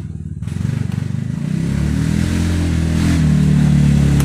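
A motor vehicle's engine passing close by, getting louder and rising slightly in pitch as it accelerates, then holding steady near the end.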